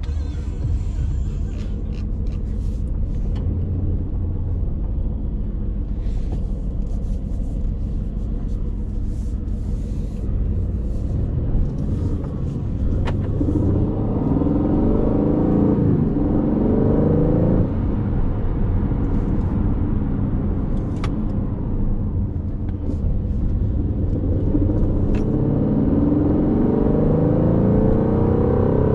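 Aston Martin Vantage's 4.0-litre twin-turbo V8 running at low revs with a steady rumble. About halfway through, and again near the end, it accelerates, its pitch rising through the gears with short drops at the upshifts.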